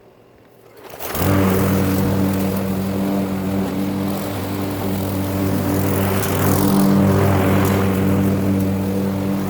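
Gas lawn mower engine starting about a second in, then running steadily at an even pitch.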